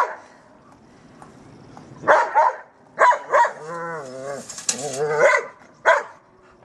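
German Shepherd dog barking in play: a run of short barks from about two seconds in, with one longer wavering call in the middle and a last short bark near the end.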